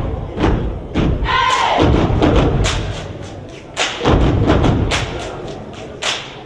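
Step team stomping and clapping in a sharp, irregular rhythm of body percussion. A shouted voice call from the steppers comes about a second and a half in.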